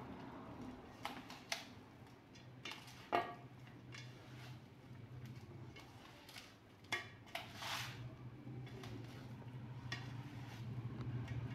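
Hands mixing marinated fish pieces in a steel plate: wet squishing and rubbing with scattered clinks against the metal, the sharpest about three seconds in. A low steady hum runs underneath.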